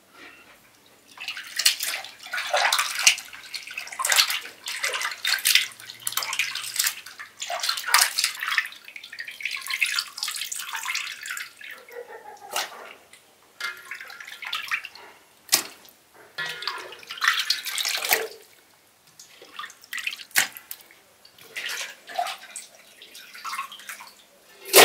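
Hands washing chunks of raw beef in a basin of water: irregular splashing and sloshing, with water dripping off the pieces as they are lifted out and squeezed.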